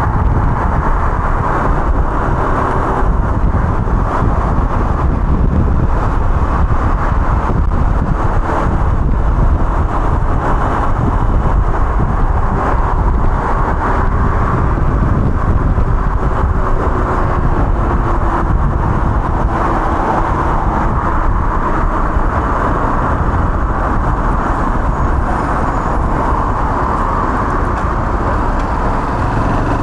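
G-Moto Cross X Pro 125 cc fuel-injected moped riding along with its engine running, mixed with steady wind and road noise on the onboard microphone. The sound is loud and even throughout, with the engine note drifting only slightly.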